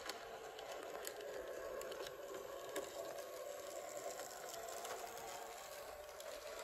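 009 narrow-gauge model trains running: a steady whirr of small electric motors and wheels on the track, with a few light clicks.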